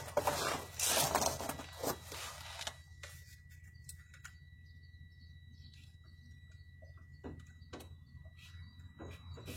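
Hands and tools working on a truck's shift-cable linkage: a couple of seconds of rustling and scraping, then a few light clicks later on, over a steady low hum.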